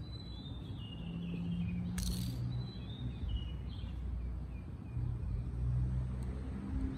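Birds chirping, a run of short high calls in the first few seconds, over a low steady hum. A brief rustle about two seconds in.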